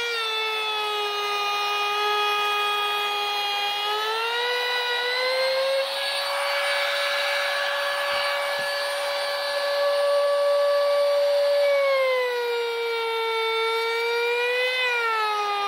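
Anesty trim router's motor running with a high whine that rises and falls in pitch as it routes the edge of a plywood board, with a rougher, noisier stretch in the middle.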